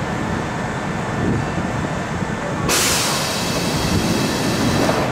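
Kintetsu Minami-Osaka Line train running at the station with a steady low rumble. About halfway through a sudden loud hiss begins and keeps on.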